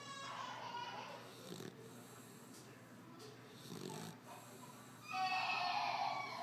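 Dog snoring in slow, rough breaths. About five seconds in, a loud high-pitched crying cuts in over it.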